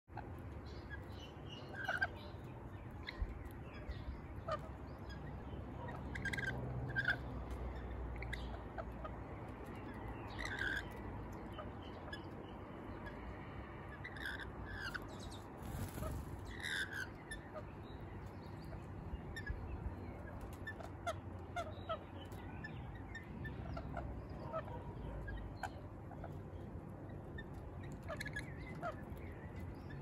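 Rainbow lorikeets calling in short, shrill screeches, scattered irregularly throughout, over a steady low rumble.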